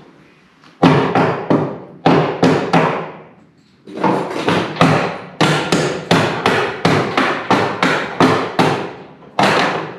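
A hammer striking metal again and again, about twenty blows in short runs with brief pauses, about three a second towards the end, each blow ringing out briefly: hammering at a bolt seized on its nut.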